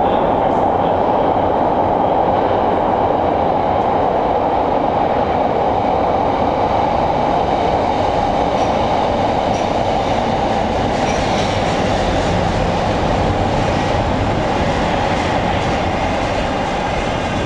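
CTA Blue Line subway train of Budd-built 2200-series cars running into an underground station. A loud, steady rumble of wheels on rail echoes off the tunnel and platform, with faint clicks over rail joints from about halfway. It eases off slightly near the end as the train slows to a stop.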